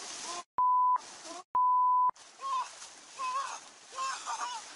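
Two short censor bleeps, steady single-pitch beeps each about half a second long, laid over the track with the rest of the sound cut out around them, about half a second and a second and a half in. Quiet voices talk between and after them.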